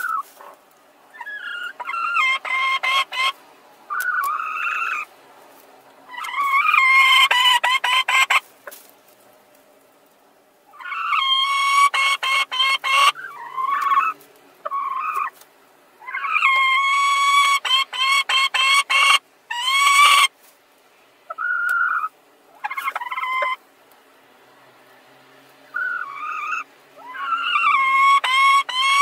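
Hens in a nest box giving repeated bouts of drawn-out, pulsing squawks and clucks, each a second to a few seconds long with short pauses between: two laying hens squabbling over the same nest.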